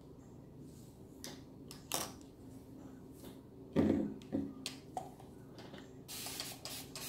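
Hands working wet curly hair and handling product containers: scattered light clicks and rustles, a knock about four seconds in, and a short hiss a little after six seconds.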